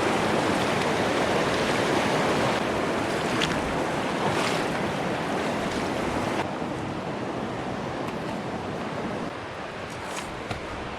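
Rushing mountain river water: a steady wash of noise that grows gradually quieter.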